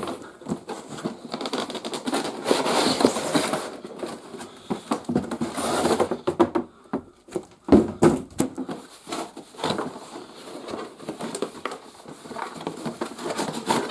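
Plastic toy parts being handled and fitted together: a run of irregular light clicks and knocks, with stretches of crinkling plastic packaging a couple of seconds in and again around the middle.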